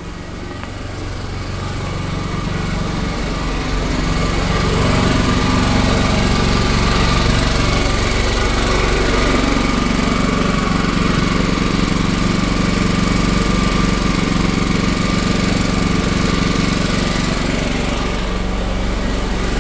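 Champion 4000-watt open-frame inverter generator's engine running steadily, getting louder over the first five seconds and then holding an even drone.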